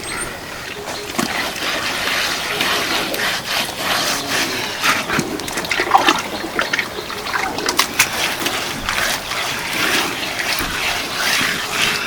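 Wet mud plaster being worked by hand on a wall: irregular wet squelches, slaps and scrapes.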